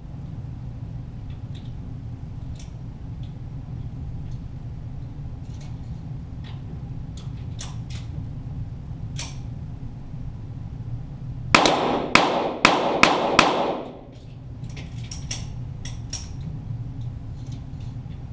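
A rapid string of five .22 LR shots from a Walther GSP target pistol, about two seconds in all, heard from beside the target. Scattered faint clicks come before and after, over a steady low hum.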